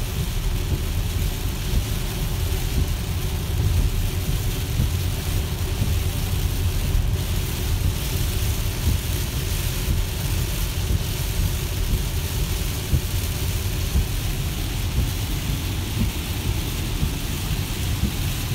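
Heavy rain on a Tesla and its tyres hissing through water on a soaked highway at about 60 mph, heard inside the cabin: a steady rushing noise over a deep rumble.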